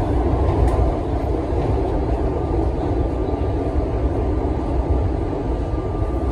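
Budd R32 subway car running at speed, heard from inside the car: a steady, loud rumble of wheels on rail and running gear, with a faint steady high tone over it.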